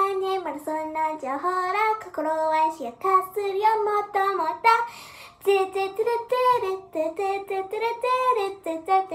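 A young girl singing alone, without accompaniment, in held notes that step up and down, with a short break about five seconds in.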